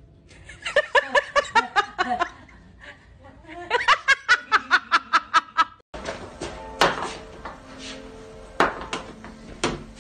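A person laughing hard in two runs of rapid, rhythmic bursts of laughter. About six seconds in the sound cuts to room noise with three sharp knocks.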